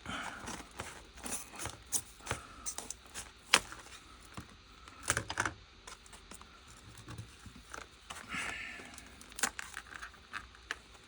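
Hard plastic clamshell packaging being worked open by hand: scattered sharp clicks and taps with short bursts of crinkling plastic. The sharpest click comes about three and a half seconds in, with a cluster around five seconds.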